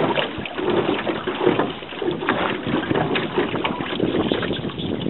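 Wind buffeting the microphone and choppy water slapping against a boat's hull as the boat moves across the lake, in uneven swells with no steady engine note.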